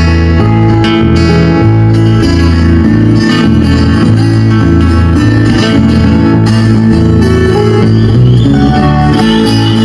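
Background music, steady and loud, with a moving bass line.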